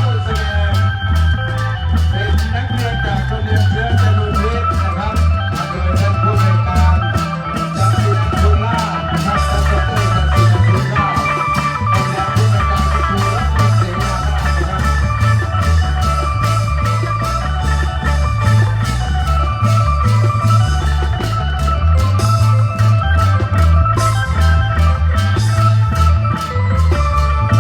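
Isan klong yao long-drum band playing: a heavy, steady drum beat with cymbal strokes under a melody line.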